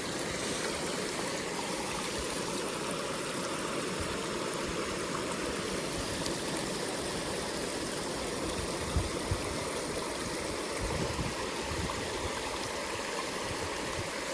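Steady rush of a running trout stream, with a few soft low knocks about two-thirds of the way through.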